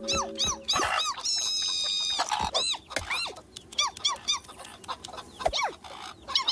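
Cartoon baby chick's rapid high cheeps, peep after peep in quick runs, with one longer held high cheep about a second in. Lower, falling squawks from cartoon hens mix in. A background music note dies away just at the start.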